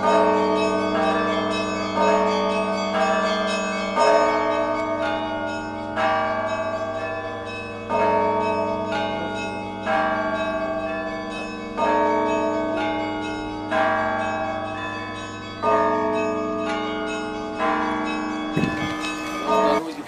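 Russian Orthodox church bells ringing from the Assumption Cathedral's bell tower. A heavy strike comes about every two seconds and dies away slowly under a deep, steady hum, while smaller bells chime between the strikes.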